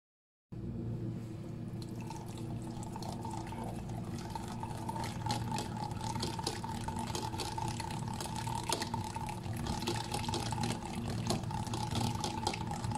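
Wire whisk beating yogurt in a ceramic bowl: wet squelching with rapid clicks of the wires against the bowl, over a steady low hum. It starts about half a second in.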